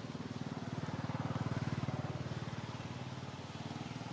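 A motor vehicle's engine running at low pitch, growing louder to a peak about halfway and then fading as it passes by.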